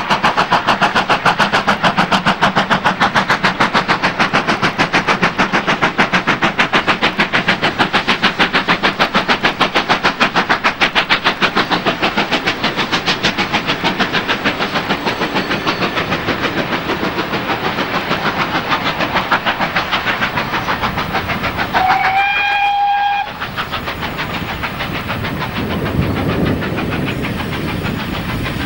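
GWR Hall class 4-6-0 steam locomotive No. 4920 Dumbleton Hall hauling a passenger train, its exhaust beats rapid and even, fading gradually as it draws away. Near the end a whistle sounds once for about a second, a note that rises briefly, holds, and cuts off sharply.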